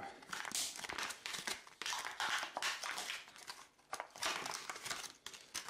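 Clear plastic blister pack crinkling and crackling in irregular bursts as hands pry and peel it open.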